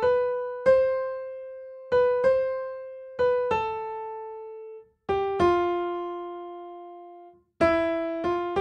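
Piano playing a slow right-hand melody one note at a time in the middle register, each note struck and left to ring and fade. About nine notes, often in quick pairs, with two brief silences between them.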